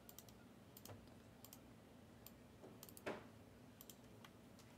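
Faint, scattered clicks of a computer keyboard and mouse, in small clusters, with one louder soft knock about three seconds in.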